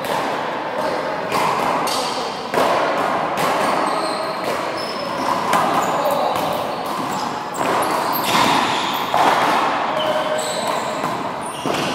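Handball rally: a small rubber ball smacked by hand, hitting the front wall and bouncing on the floor in sharp, irregular slaps that echo through a large indoor court.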